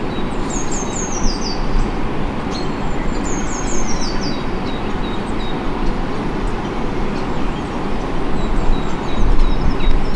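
A songbird sings a short song that steps down in pitch, twice clearly and a third time faintly, over a loud steady rushing noise.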